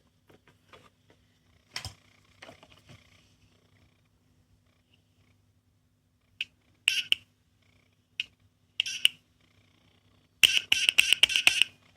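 A few light clicks of a small plastic sound toy being handled, then short, tinny sound effects from its tiny speaker: single blips a few seconds in and a quick run of them near the end.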